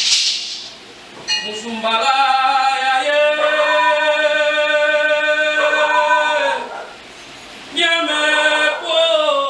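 A man chanting in long, drawn-out held notes: one long phrase, then a second one starting near the end. A brief rattling shake of a calabash gourd rattle opens it.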